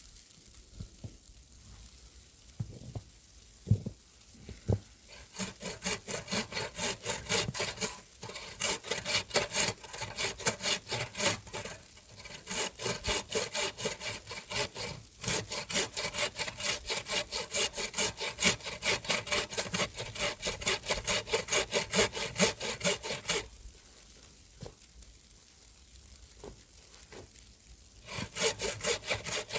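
Hand saw cutting through wood in quick, even back-and-forth strokes, with a few seconds of light knocks before it starts and a pause near the end before the sawing resumes.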